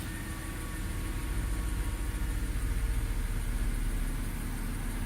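2010 BMW 328i's 3.0-litre straight-six idling, with a persistent misfire on cylinder 6 that swaps of the injector, coil, plug and engine computer have not cured.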